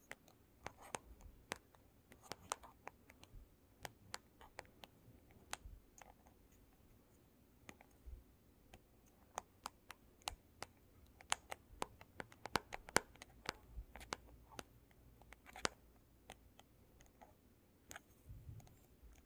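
Long fingernails tapping and scratching on a hard, glossy black surface that is wet with water droplets: irregular sharp clicks, often several a second, with short scrapes between them.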